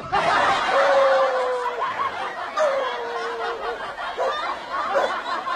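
People laughing and snickering, starting abruptly; a couple of long, slowly falling tones run through the laughter.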